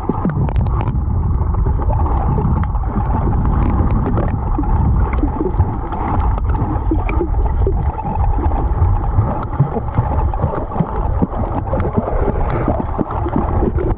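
Muffled underwater sound picked up by a camera held below the surface: a steady low rush of water with many small clicks and crackles scattered through it.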